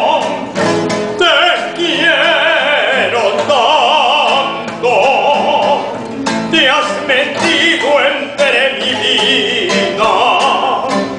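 A man singing a slow romantic song with wide vibrato, accompanied by a nylon-string classical guitar.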